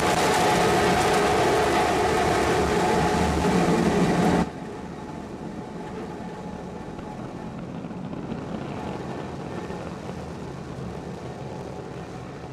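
The three Raptor rocket engines of SpaceX's Starship SN15 prototype firing in flight: loud, steady noise with a few held tones. It drops suddenly about four and a half seconds in to a much quieter, steady noise.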